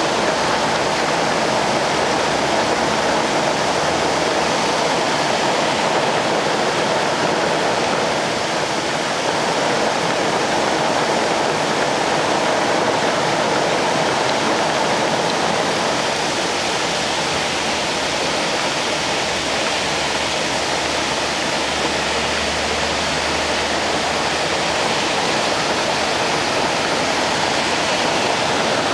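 Steady rush of heavy rain and muddy runoff water pouring off a rock cutting onto a flooded motorway. A deeper rumble swells about four seconds in and again past twenty seconds as cars pass through the water.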